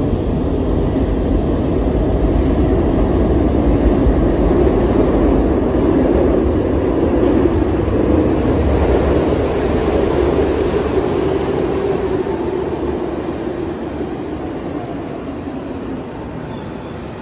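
SEPTA Market-Frankford Line M-4 subway train running into an underground station: steady rumble of steel wheels on rail. It is loudest as the train draws in and the cars pass, then slowly grows quieter.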